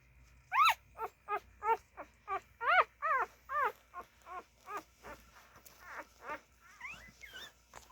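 Siberian husky puppies giving a rapid string of short, high squeaks and whimpers while nursing, about two or three a second, louder in the first half and fading toward the end.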